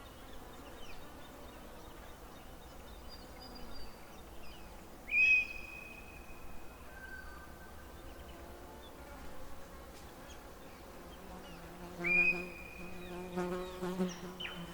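Outdoor nature ambience. Two loud high whistled calls, each a sharp note held for about a second, come about 5 and 12 seconds in, with faint chirps in between. From about 11 seconds on, a flying insect buzzes, a low steady hum.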